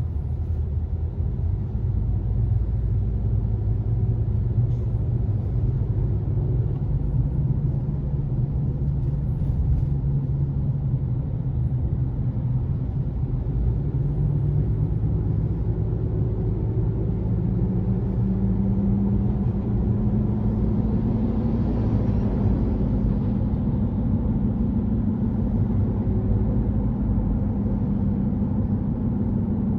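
2018 Honda CR-V driving with a loud low hum over the road rumble; the hum climbs in pitch a bit past the middle and then holds steady. It is the persistent hum the owner hears between about 25 and 65 MPH, which goes away with the front wheels lifted, and which he suspects is a bad hub assembly or bad tyres.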